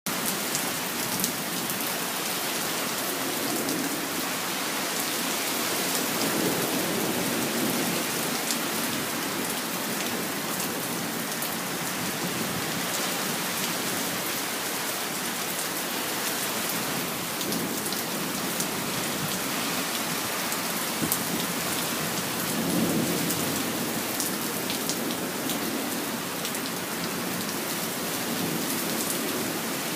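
Steady rain: a dense, even hiss with scattered sharp drop ticks. Two slow, low rumbling swells rise out of it, one in the first quarter and one about three-quarters of the way through.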